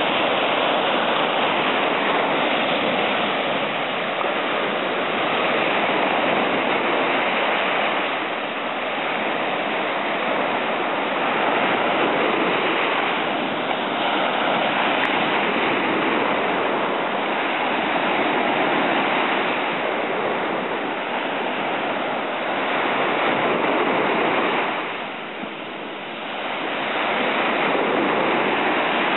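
Ocean surf breaking and washing up a sandy beach: a continuous rush of water that swells and ebbs with the waves, easing off for a moment near the end.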